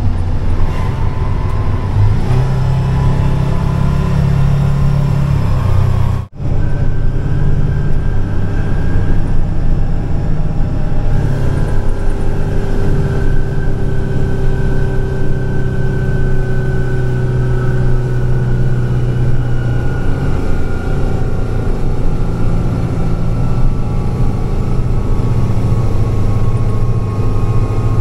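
Military heavy equipment transporter truck's diesel engine running steadily while driving on the road, its drone mixed with road and wind noise. The engine note shifts slowly up and down, and the sound drops out for a split second about six seconds in.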